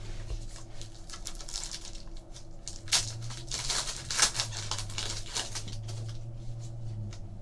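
Hockey trading cards and a foil pack wrapper being handled: short crinkling and rustling with light clicks as the cards are slid and stacked, densest about halfway through, over a steady low electrical hum.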